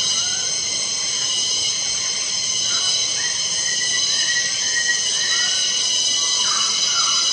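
A steady, loud insect chorus shrilling without a break. From about three seconds in, a bird gives a run of short slurred call notes over it.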